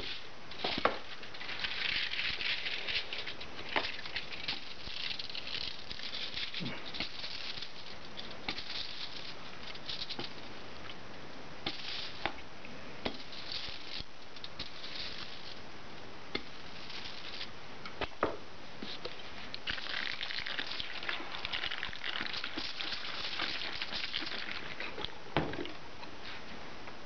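Hand ink roller (brayer) rolling printing ink over an aluminium-foil lithographic plate: a crackling hiss that comes in spells of a few seconds, the longest in the second half, with scattered small clicks between strokes.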